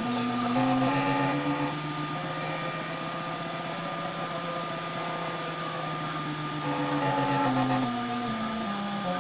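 Homemade 3D printer running a print, its stepper motors whining in steady tones that glide up in pitch about a second in, hold, and step back down near the end as the moves change speed, over a constant high tone.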